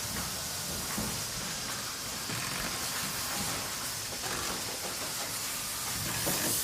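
Factory ambience: a steady hiss with a few faint knocks of machinery.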